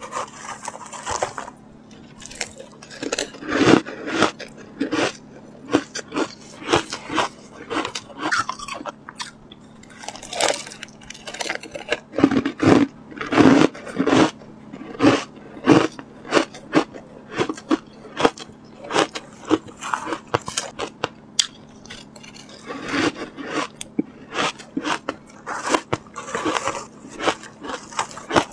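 Shaved ice coated in powder being bitten and chewed close to a clip-on microphone: quick runs of crisp crunches with short pauses between mouthfuls.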